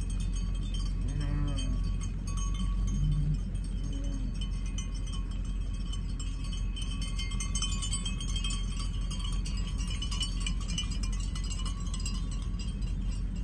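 Bells on sheep in a passing flock clinking and tinkling continuously, with a few sheep bleats in the first four seconds, over a steady low rumble.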